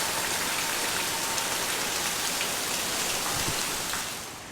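Heavy rain pouring down with a loud, steady hiss of rain and splashing water. It drops away about four seconds in.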